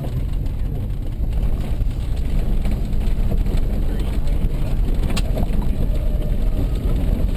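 Car engine running with a steady low rumble, and a single sharp click about five seconds in.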